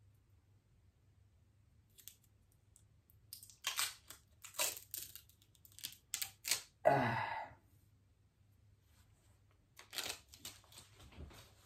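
Packaging of a small parcel being torn open and rustled by hand: short tearing and crinkling sounds after a quiet start, the loudest a longer rip about halfway through, then more rustling near the end.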